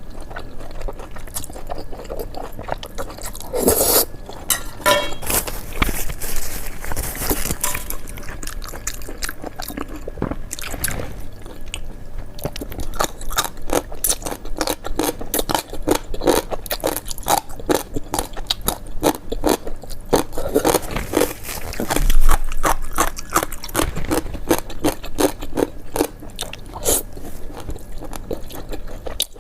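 Crunching and chewing of crisp food, with scraping sounds mixed in: a dense run of irregular crunches that grows busier in the second half, with one louder hit past the middle.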